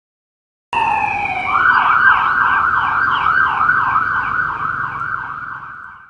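Police car siren starting abruptly about a second in with a falling wail, then switching to a fast yelp, its pitch sweeping up and down about two to three times a second over low road rumble. It fades steadily as the car goes past and cuts off at the end.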